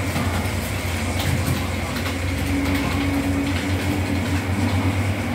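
Model train running along the layout track: a steady motor hum with light clicking of the wheels over the rails.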